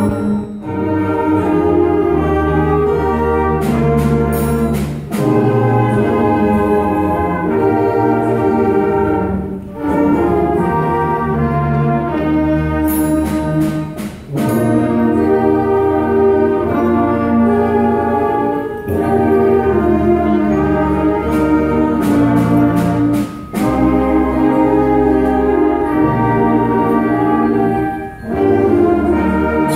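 Live instrumental ensemble playing a slow piece in sustained chords that change every few seconds, with struck bells ringing through it.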